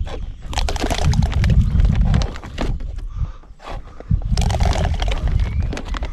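Handfuls of carp boilies being grabbed and thrown out over the lake, twice, with a lot of clattering and crackling and a low buffeting rumble.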